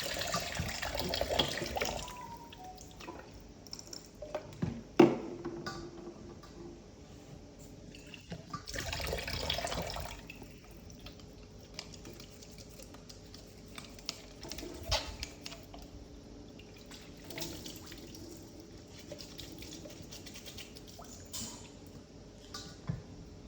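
Water running and dripping, in stretches near the start and again around nine seconds in, with scattered clicks and one sharp knock about five seconds in.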